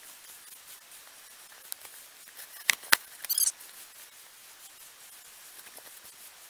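Handling noise from a small handheld camera: two sharp clicks a quarter-second apart, about three seconds in, then a short rattle, over a faint steady hiss of wind.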